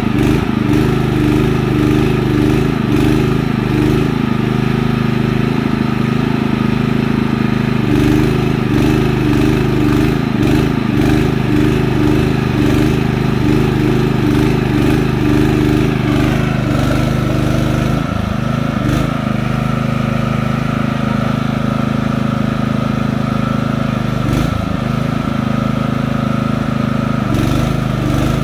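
Small portable petrol generator running steadily, its engine note shifting slightly about two-thirds of the way through.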